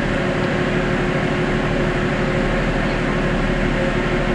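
Steady mechanical drone with a few constant humming tones, from a large ship's engines and ventilation heard out on deck.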